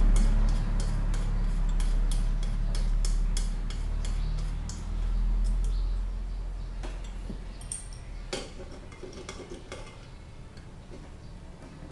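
Light metallic clicks and taps of small brass pressure-lantern parts being handled and fitted, about two or three a second at first, then more scattered, over a steady low hum that fades out about eight seconds in.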